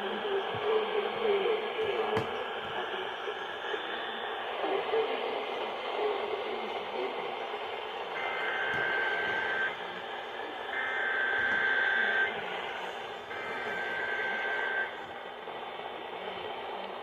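Emergency Alert System SAME header: three bursts of screeching two-tone digital data, each about a second and a half long and a second apart, heard over a radio with steady hiss.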